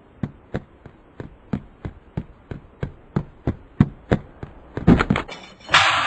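Cartoon sound effects: a run of sharp, evenly spaced knocks, about three a second, that come quicker toward the end, then a sudden loud burst of noise about half a second before the end.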